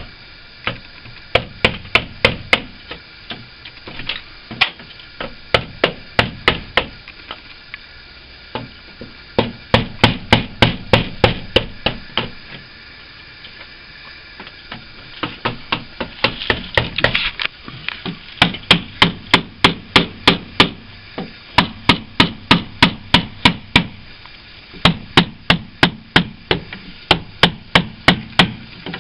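Runs of quick, sharp hammer taps, about four a second, chipping hard old putty out of a timber window frame, broken by short pauses between runs.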